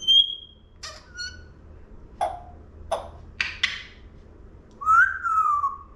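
Congo African grey parrot vocalizing. It opens with a short high whistle, then gives a string of short sharp clicks and rasps. Near the end comes a longer whistle that rises briefly and slides down in pitch.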